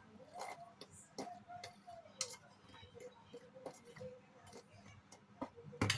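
A spoon clicking and scraping against a bowl in irregular light taps while a dry flour mixture is stirred, with one sharper knock near the end.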